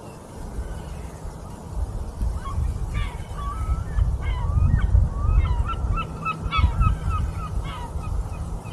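Geese honking: a rapid string of short calls from about two seconds in until near the end, over a low rumble of wind.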